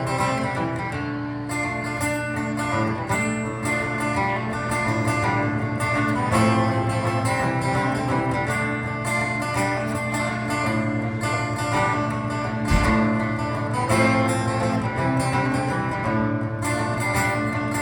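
Acoustic guitar strumming a country song's instrumental break, steady chords with no singing. A single low thump about two-thirds of the way through.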